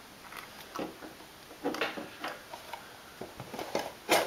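Handling noise from a paperboard storage drawer: scattered light taps and scrapes, with one sharper knock near the end.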